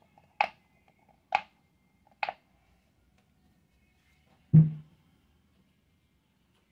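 Large silicone pop-it fidget toy, bubbles pressed so they pop: three sharp pops about a second apart, then a louder, deeper thump about four and a half seconds in.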